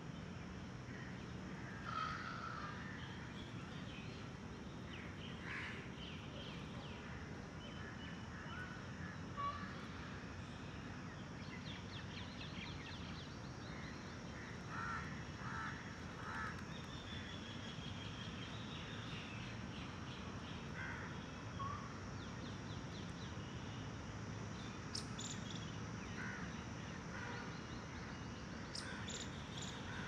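Outdoor ambience: a steady low background noise with scattered short bird calls, some coming in quick runs of several calls.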